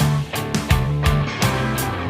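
Background rock music: electric guitar and bass over a steady drum beat.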